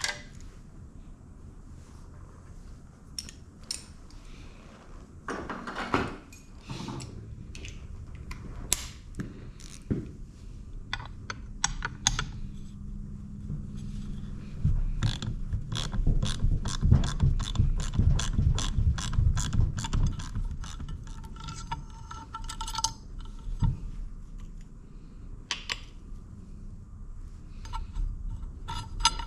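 Hand ratchet wrench clicking in a long run of quick, even strokes as a bolt is turned, with scattered metallic clicks and clinks of tools and parts before and after.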